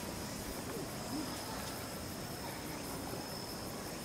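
A steady high-pitched insect trill, with a few faint, short low hoot-like calls underneath.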